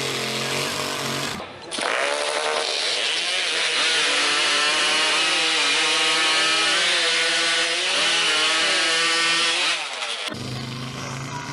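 Chainsaw engine running at high revs, its pitch dipping and rising repeatedly as if working through wood. Shorter stretches of another engine running at the start and again near the end.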